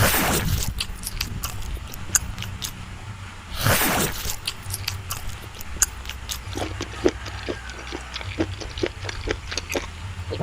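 Close-up eating sounds of a person eating cream cake: wet smacking and chewing clicks, with two louder bites or slurps, one at the start and one about three and a half seconds in, and quicker rhythmic chewing in the second half.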